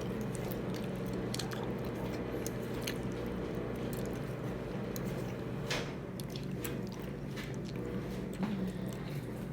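A person chewing and eating food close to the microphone, with small wet mouth sounds and scattered light clicks, over a steady low hum.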